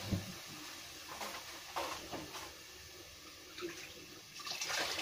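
Water poured from a plastic jug into a cooking pot, splashing in uneven swells that are loudest near the end: measured cups of water going in to cook rice. A short knock at the start.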